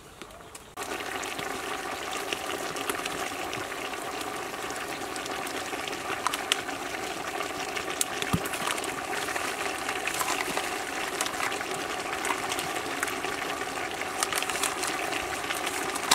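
Beef pieces and spice paste sizzling and bubbling in a large pot over a wood fire, a steady hiss with many small crackles. It starts suddenly about a second in.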